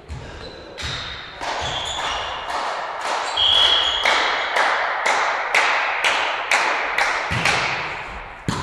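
A short, shrill whistle blast about three and a half seconds in, most likely the referee's whistle for the serve. It sits over a steady run of sharp, echoing smacks in the hall, about two a second, which carry on to near the end.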